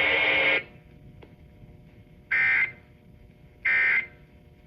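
The automated NOAA Weather Radio voice finishes, then three short bursts of EAS digital data tones sound about 1.3 s apart. These are the SAME end-of-message signal that closes the warning broadcast.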